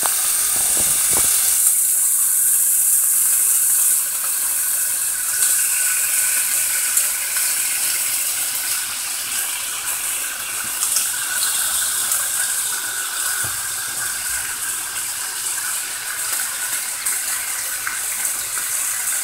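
Whole baby octopuses sizzling in a hot frying pan, a loud steady hiss as their water cooks out, louder for the first four seconds. A couple of low knocks about a second in.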